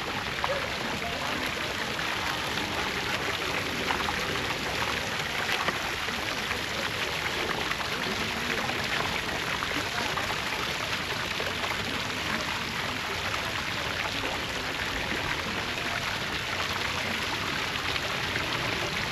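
Steady splashing and pattering of falling water, with many small drips and splashes in it.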